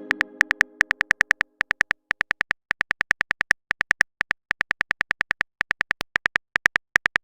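Chat-app keyboard typing clicks: a quick run of short taps, about five or six a second with brief pauses, as a message is typed out. The tail of a message chime fades under the first taps.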